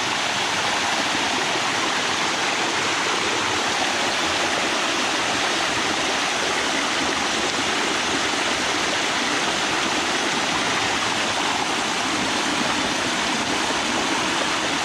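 Continuous steady rush of water from the Bua Tong waterfall cascading over limestone rock, heard close up.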